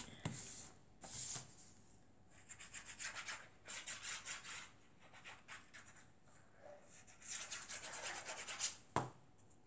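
The tip of a liquid-glue bottle rubbed back and forth across a sheet of patterned paper, in several bursts of quick scratchy strokes. There is one sharp click near the end.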